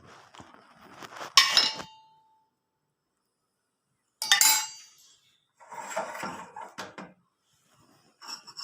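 Dishes and utensils clinking and knocking in a kitchen. There are two sharp clinks with a short ring, about a second and a half in and about four seconds in, then a stretch of softer clattering and scraping.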